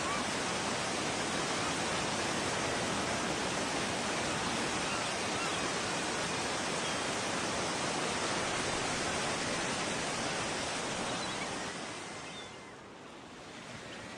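Steady rushing roar of heavy surf breaking on a beach, dropping to a quieter wash about twelve seconds in.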